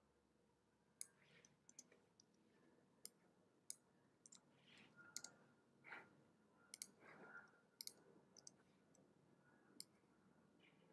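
Faint, sharp clicks of computer input while editing at a desk, about eight of them spread irregularly over ten seconds, with a few soft brushing sounds between them in the middle.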